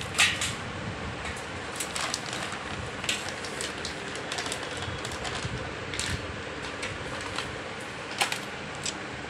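Scissors cutting a plastic food packet open, with the plastic crinkling and rustling and a few sharp clicks, over a steady hiss.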